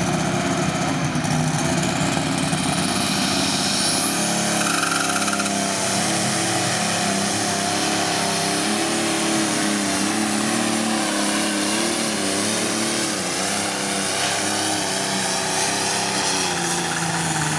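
Modified John Deere pulling tractor's engine running flat out under heavy load as it drags the weight sled on a pulling pass. The engine note holds high and steady, wavering in pitch about midway through.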